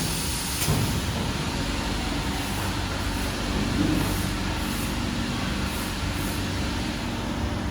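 Steady mechanical hum and running noise of workshop machinery, with a sharp click about half a second in.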